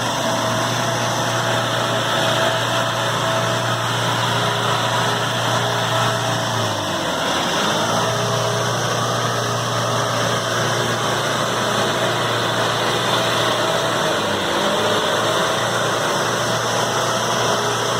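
A 4x4 vehicle's engine running steadily at low revs. Its pitch dips briefly about a third of the way in and again about three-quarters of the way through.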